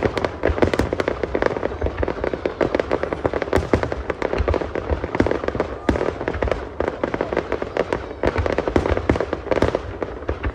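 Aerial fireworks display: a continuous barrage of bursting shells, with rapid bangs and crackling that never let up.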